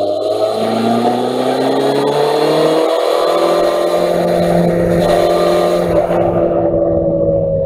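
Motorcycle engine accelerating, its pitch climbing, with a short break about three seconds in as the rider changes gear, then rising more slowly and levelling off, under wind and road noise.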